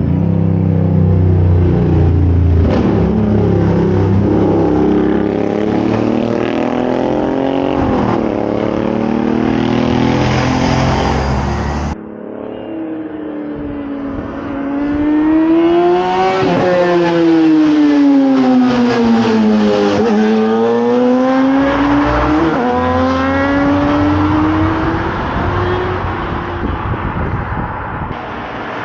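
2009 Yamaha R6's inline-four engine through a full Yoshimura exhaust, running and revving hard, its pitch climbing and falling several times. The sound breaks off abruptly about twelve seconds in and picks up again with more rises and falls in pitch.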